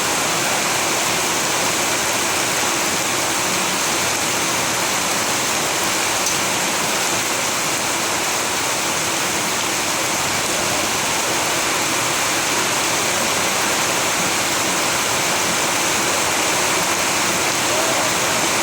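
Steady rain, an even continuous hiss with no single drops standing out.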